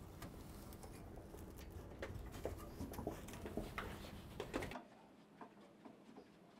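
Hand screwdriver driving screws through metal side brackets into wooden cabinet supports: faint, irregular small clicks and scrapes. The low background hum cuts out abruptly about three-quarters of the way through.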